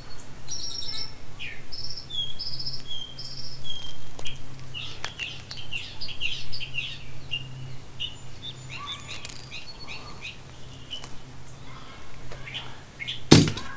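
Birds chirping and singing, with many short repeated high notes and trills, over a steady low hum. A single sharp knock sounds near the end.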